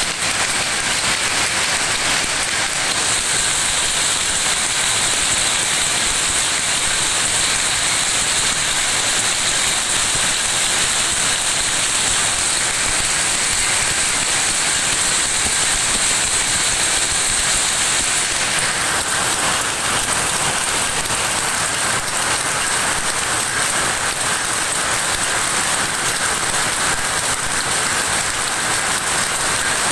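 Many powerlooms running at once in a weaving shed: a loud, steady mechanical din with a strong high hiss.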